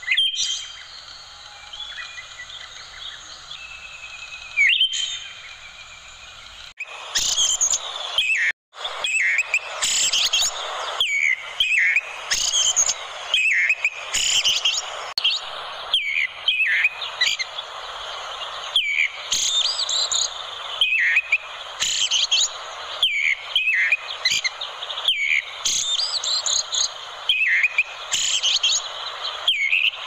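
Orange-headed thrush song: quick phrases of high, varied whistles and chirps that rise and fall, repeated about once a second over a steady hiss. About seven seconds in, the song grows louder and denser, with a brief cut to silence just after.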